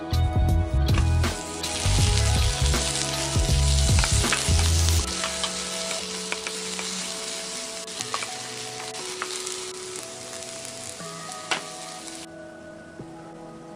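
Sliced onions sizzling in a hot oiled pan while a wooden spoon stirs them, with a few dull thumps in the first few seconds as they go in. The sizzle cuts off suddenly near the end, and soft background music runs underneath.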